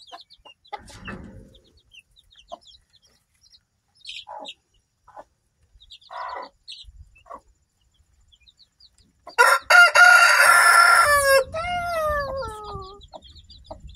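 Days-old chicks peeping and a Black Australorp hen clucking softly. About nine seconds in, a rooster crows loudly, and the crow trails off in falling notes.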